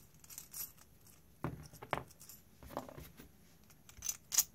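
A few separate small metal clicks and clinks as the nuts and washer on the threaded steel barrel of an inductive auto bed level sensor are handled and fitted; the two sharpest come near the end.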